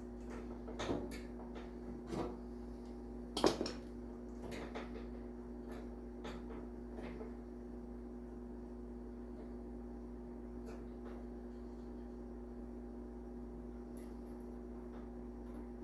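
Hand tools clicking and knocking against metal while a 10 mm bolt is fitted on a snowblower's chute cable bracket: a few sharp strikes, the loudest about three and a half seconds in, thinning to faint ticks after about seven seconds. A steady low hum runs underneath.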